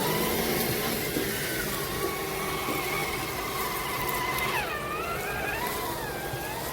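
3D-printed RC rock crawler's electric motor and gearing whining as it drives, a steady whine that dips in pitch a little after halfway and then wavers with the throttle.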